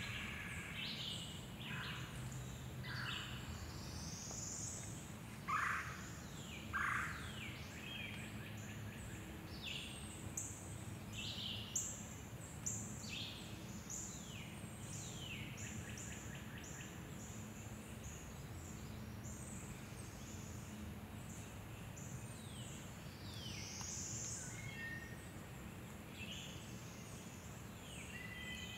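Several songbirds singing and calling, a busy mix of short chirps and quick down-slurred notes, with two louder calls about five and a half and seven seconds in, over a steady low background rumble.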